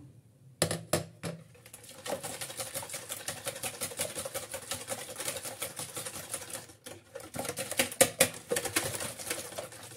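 Wire whisk beating eggs in a plastic bowl: fast, even clicking of the wires against the bowl. A few separate knocks come in the first second or so, and the whisking breaks off briefly about seven seconds in.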